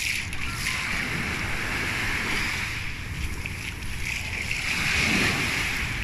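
Small sea waves washing in over sand at the water's edge. The wash swells to its loudest about five seconds in as a wave breaks into foam, over a low rumble of wind on the microphone.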